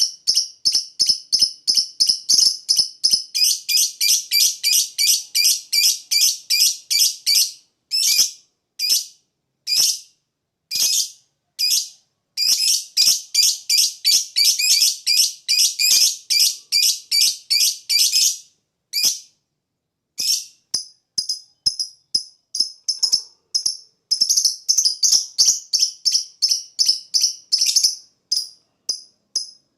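Lovebird calls: sharp, high chirps repeated several times a second in long runs with short breaks, used as a lure call to draw an escaped lovebird back.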